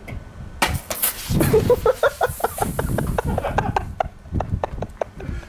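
A pressurised aluminium can of Pepsi hits the ground with a sharp crack and hisses for about three seconds as the fizzy drink sprays out, while short bursts of laughter run over it.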